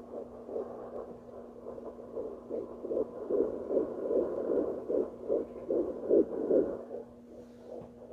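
Fetal heartbeat through a handheld home fetal Doppler's speaker: a quick pulsing of about three beats a second over a steady hum. It grows louder a couple of seconds in and fades again about a second before the end.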